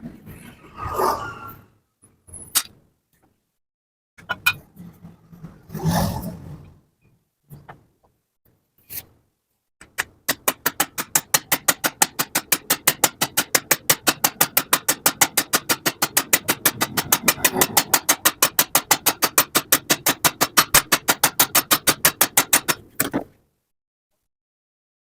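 A few knocks and bits of mechanical clatter, then a fast, perfectly even clicking of about six clicks a second that runs for some thirteen seconds and stops suddenly.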